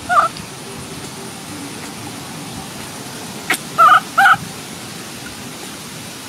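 Baby macaque crying: short high-pitched calls, one just after the start and two in quick succession about four seconds in, over a steady background hiss, with a sharp click just before the pair.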